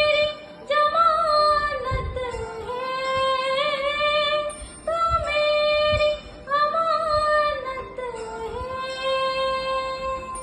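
A woman singing a Hindi song in long held, lightly wavering phrases with short breaks for breath between them.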